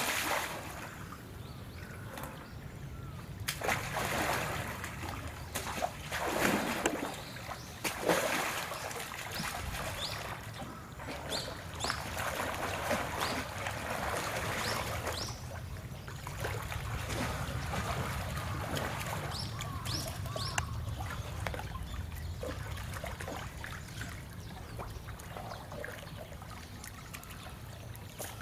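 Indian rhinoceros wading in a pool, water splashing and sloshing around its legs and head as it dips its face under. The loudest splashes come in the first eight seconds or so, then the water settles to steadier sloshing.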